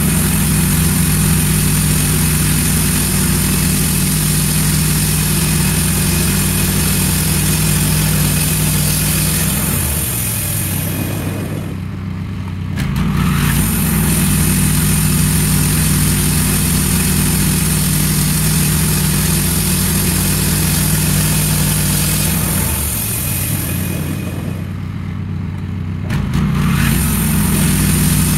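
Wood-Mizer LT15 portable band sawmill running, its engine under steady load with a high hiss as the band blade cuts ash lumber. Twice, about ten seconds in and again about twenty-two seconds in, the engine note drops and the sound eases off for a few seconds before picking up again.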